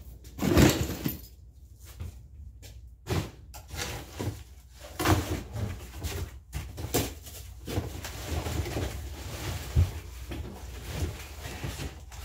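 Household items being handled and moved by hand: irregular bumps, knocks and rustling of bags and cardboard boxes, with a loud thump about half a second in.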